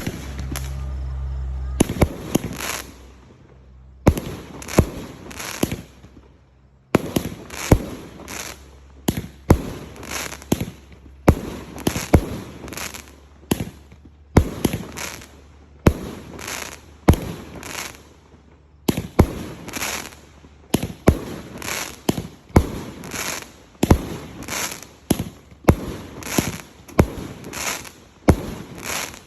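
109-shot fireworks cake firing: a rapid run of sharp bangs, roughly two a second, each trailed by a hiss, in volleys broken by short pauses. The shots begin about two seconds in, after a low hum.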